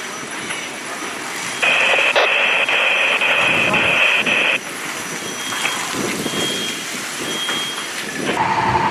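Fire radio over steady background noise: about one and a half seconds in, a three-second burst of narrow-band radio static with a high tone in it cuts in and then stops abruptly. Near the end a steady single tone from the radio begins.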